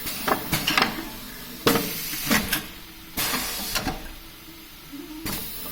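Automatic shrink-wrap packaging machine running through its cycle: a few hissing bursts, each about half a second to a second long, between sharp clicks and clacks, over a faint steady hum.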